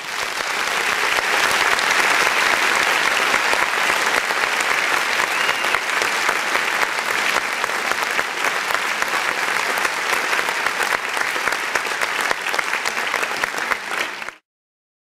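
Audience applause: dense, steady clapping that cuts off suddenly near the end.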